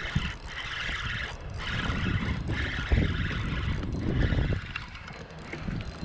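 Spinning reel being cranked to reel in a hooked bass, its gears whirring in spells.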